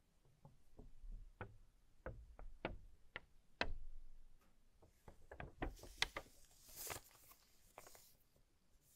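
Faint handling of a folded paper quick start leaflet by gloved hands: scattered soft taps and clicks, then a short papery rustle later on as the leaflet is folded up.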